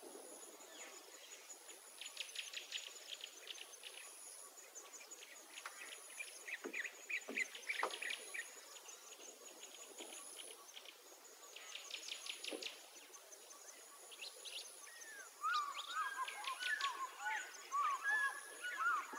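Outdoor ambience of birds calling: quick runs of high chirps now and then, and a flurry of rapid warbling calls near the end. A faint high-pitched whine pulses on and off underneath, with a few soft knocks in the middle.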